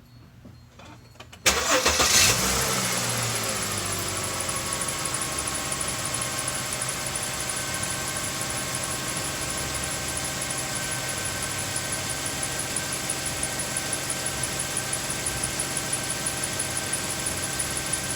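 Mercedes-Benz C300 4Matic engine starting about a second and a half in, with a brief flare of revs, then settling into a steady idle.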